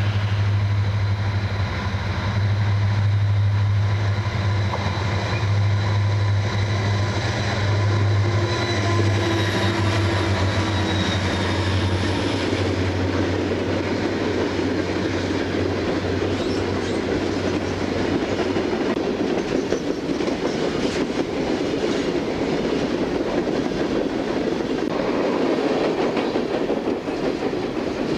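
CSX freight train passing close by: a low diesel locomotive drone that fades away after about fifteen seconds, then the steady rumble and clatter of coal hopper cars rolling past on the rails.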